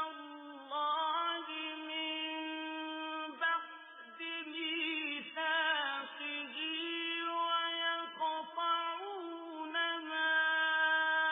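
A male Quran reciter's voice in slow melodic recitation, holding long steady notes and turning them in ornamented pitch bends, with brief breaths between phrases.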